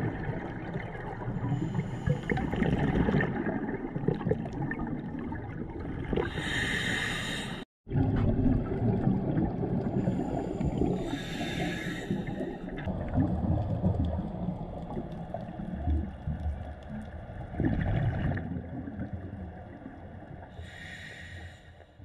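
Scuba regulator breathing recorded underwater: a short hiss of inhalation every four to five seconds between longer stretches of rumbling, bubbling exhalation. The sound drops out for a moment about eight seconds in and fades away at the end.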